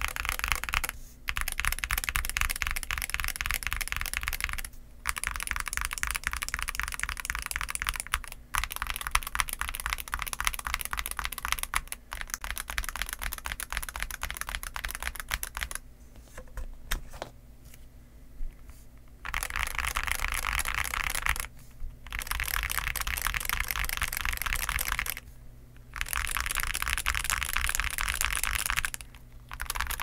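Fast continuous typing on an Akko MOD007B HE PC mechanical keyboard with Cream Yellow magnetic (Hall effect) switches and dye-sub PBT OEM-profile keycaps: dense runs of key clacks broken by short pauses every few seconds, with a quieter, sparser stretch a little past the middle.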